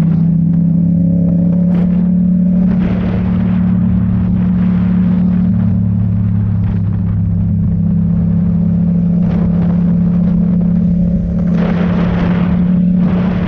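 Motor vehicle engine droning at a steady speed, with swells of road or wind noise about three seconds in and again near the end.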